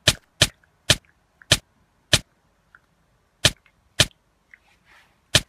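A run of eight short, sharp hits or clicks at uneven intervals, about one every half second, with a pause of over a second near the middle.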